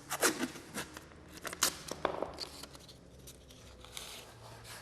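Handling noise: a string of light clicks and scrapes, sharpest in the first two seconds, then fainter.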